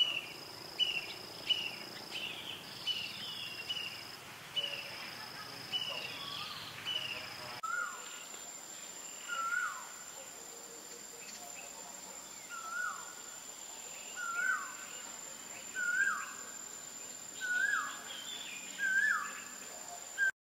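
Outdoor insect and bird chorus: a steady high insect buzz with quick repeated chirps, which changes abruptly about a third of the way in to a thin, very high steady insect whine and a bird's short hooked call repeating about every second and a half, growing louder. The sound cuts off just before the end.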